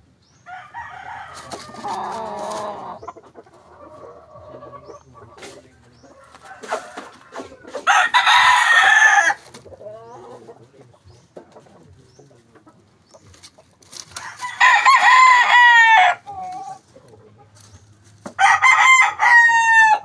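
Roosters crowing: three loud crows, each about a second and a half long, about eight, fifteen and nineteen seconds in, with a quieter, rougher call near the start.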